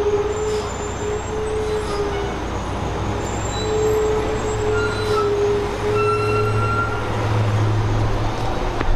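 Street traffic: a vehicle engine running steadily under a few long held tones, its low rumble growing stronger about six seconds in.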